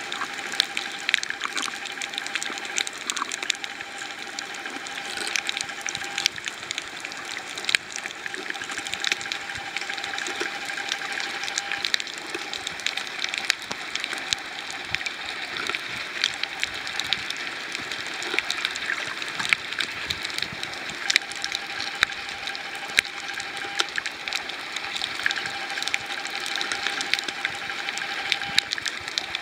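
Underwater sound over a coral reef, heard through a waterproof compact camera: a dense, irregular crackle of sharp clicks, typical of snapping shrimp on a reef. A faint steady tone comes and goes.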